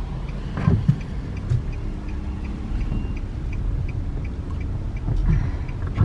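Car cabin road and engine rumble, with a turn-signal indicator ticking steadily about three times a second.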